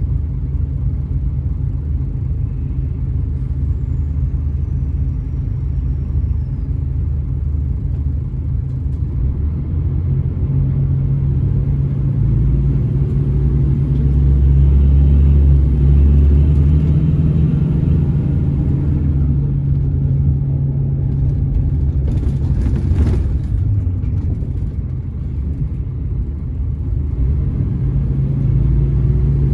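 Scania Irizar Intercentury 12.32 bus's diesel engine heard from inside the cabin, running low at first and then pulling away, its drone growing louder around the middle as it accelerates. A short hiss comes a little past two-thirds through.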